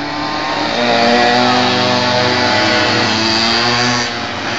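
Pocket bikes' small two-stroke engines running at speed, a buzzing whine that rises and falls in pitch as the riders go around. It is loudest through the middle and drops off suddenly about four seconds in.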